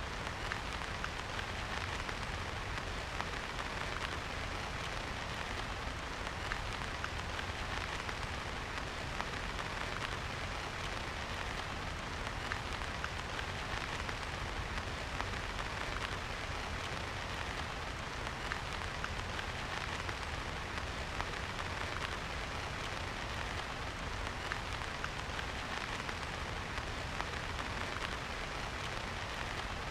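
Steady rain falling, with many small drop hits throughout.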